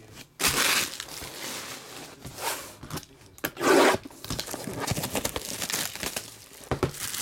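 Clear plastic shrink wrap being torn and crinkled off a sealed trading-card box. There are a few sharp rips, the loudest about half a second in and again near four seconds, then steady crinkling of the loosened wrap.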